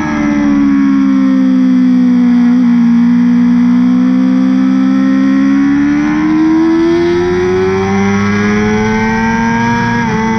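BMW S1000RR inline-four sportbike engine with an Akrapovic exhaust, heard onboard at track speed. Its note falls as the bike slows into a corner, holds low through the lean, then climbs steadily as the throttle opens on the exit, dipping briefly near the end.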